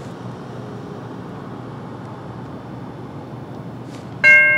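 Steady low street background noise, then about four seconds in a railroad crossing's Safetran Type 3 electronic bell starts ringing loudly: a repeating electronic tone struck about three times a second, which signals that the crossing has activated for an approaching train.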